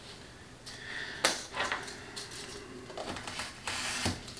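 Handling noise from craft work at a table: light knocks, clicks and short scraping rustles as materials are handled, with a sharp click a little over a second in and a cluster of knocks near the end.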